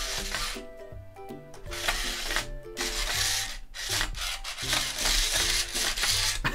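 Small Six six-legged toy robot walking across a wooden tabletop, its plastic legs rubbing and scraping on the wood in repeated uneven strokes.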